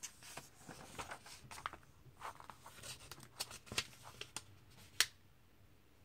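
Comic book pages being turned by hand: paper rustling and crinkling with crisp clicks, ending in one sharp snap about five seconds in.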